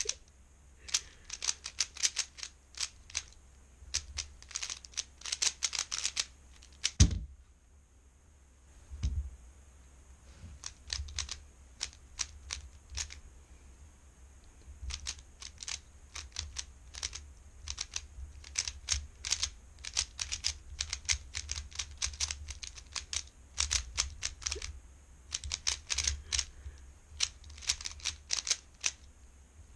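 Rapid clicking of a 3x3 speedcube's plastic layers being turned fast by hand. A single heavy thump comes about seven seconds in, the turning stops for a few seconds, and then the quick clicking starts again.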